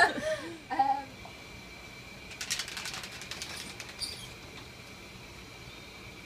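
A quick run of small clicks and rustling lasting about a second, starting a little over two seconds in, over a faint steady high-pitched whine.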